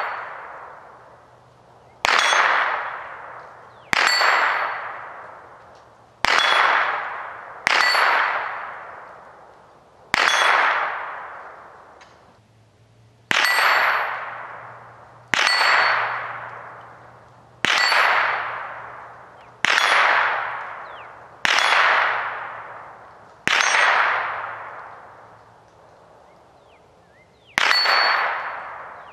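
Hanging 8-inch steel target plates struck by .22 rimfire bullets from a Ruger 10/22. Each hit is a sharp clang that rings and dies away over a second or two. There are about a dozen hits, roughly one every two seconds, with a longer pause near the end.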